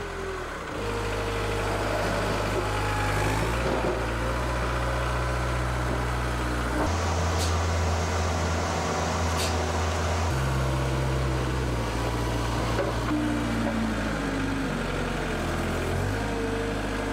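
Engine of a Manitou truck-mounted telescopic forklift running steadily while its boom lifts a cage of gas bottles. The engine's pitch shifts in a few steps, and there are two faint clicks about halfway through.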